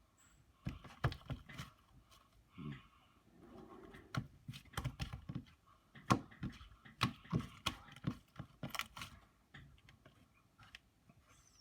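Slime being squished and worked by hand, giving irregular sticky clicks and small pops.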